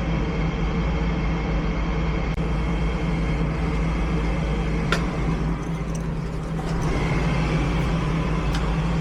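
Steady engine and road noise of a vehicle heard from inside the cabin while driving.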